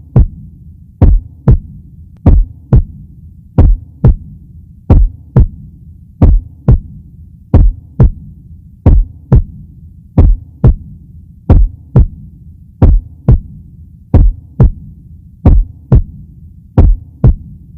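Heartbeat sound effect: slow paired lub-dub thumps, about 45 beats a minute, over a steady low hum.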